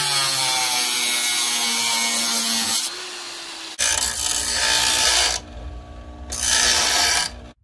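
Angle grinder with a cut-off wheel cutting steel plate, its whine slowly dropping in pitch under load. Then a bench grinder grinding a steel piece in two stretches with a short break between, stopping sharply near the end.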